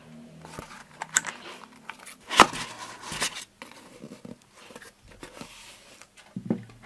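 Cardboard box and foam packing rustling and crinkling, with scattered clicks and knocks, as hands lift a model engine out of the box. The sharpest, loudest handling noise comes about two and a half seconds in.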